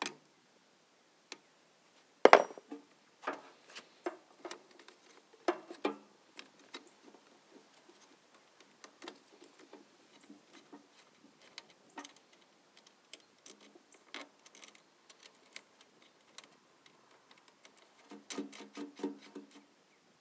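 Steel wrench clinking and ticking on battery terminal bolts as the cable clamps are tightened: irregular light metal clicks, with a louder clank about two seconds in. A short pitched sound comes near the end.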